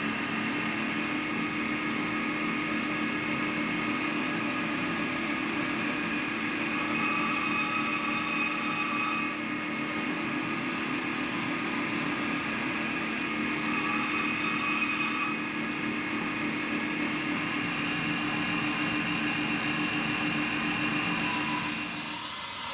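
An electric power tool motor running steadily in a workshop, with a higher whine coming in twice for a second or two.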